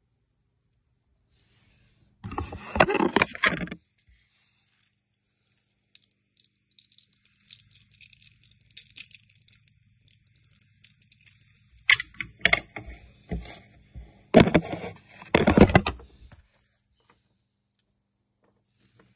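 Round apatite stone beads of a necklace clicking and clacking against each other as the strand is handled and bunched in the hands. A dense rattle comes about two seconds in, scattered clicks follow, and a longer, busier run of clacking comes from about twelve to sixteen seconds.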